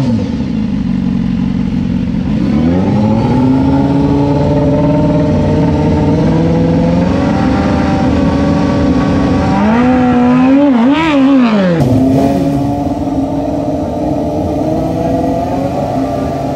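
Sport motorcycle engine held at a steady raised rev, its pitch climbing about two seconds in, with a quick run of throttle blips around ten seconds in. It then gives way to another motorcycle idling.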